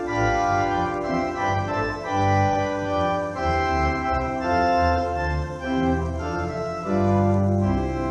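Church organ playing a slow chordal piece, with sustained notes and chords changing every half second to a second over a moving bass line. About seven seconds in, it settles into a long held chord with a strong low bass note.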